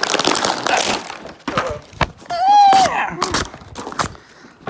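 Toy packaging being handled and opened: plastic and cardboard crackling, with several sharp clicks and knocks. About halfway through comes a short pitched sound that rises and falls.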